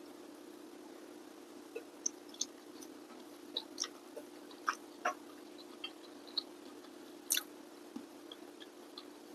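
A person eating with their fingers: scattered soft mouth clicks and chewing smacks, the loudest about seven seconds in, over a steady low hum.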